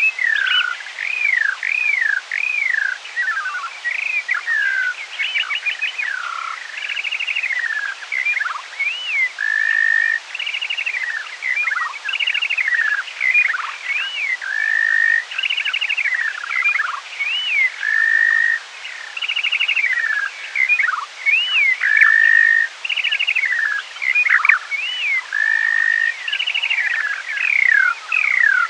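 Skylark song played back at half speed, so an octave lower than in life. It is an unbroken stream of swooping up-and-down whistled slides, rapid rattling trills and short steady notes.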